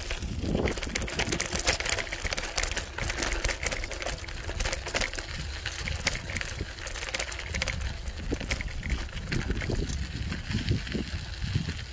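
Bicycle rolling over a gravel and dirt track: the tyres crunch with a dense, irregular patter of small clicks and rattles, over a low rumble of wind on the microphone.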